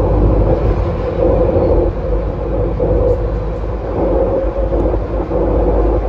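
Bombardier T1 subway train running at speed through a tunnel, heard from inside at the front window: a steady rumble of wheels on rail with a droning tone.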